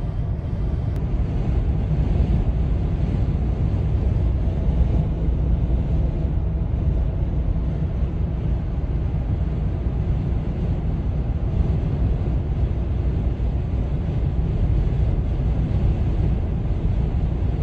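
Steady low rumble of a vehicle driving on a highway, with road and wind noise from strong storm winds.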